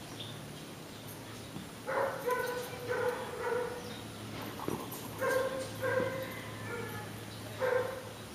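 A dog barking in short, pitched barks, several in a row starting about two seconds in, then another cluster later on.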